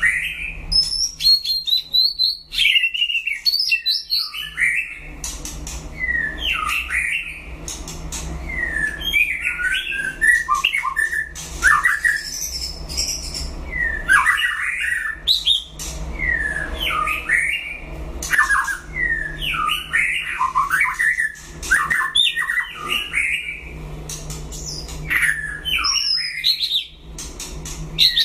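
White-rumped shama singing its competition song in varied phrases every couple of seconds, mixing sliding whistles with sharp clicks and harsh notes. A faint steady low hum sits underneath.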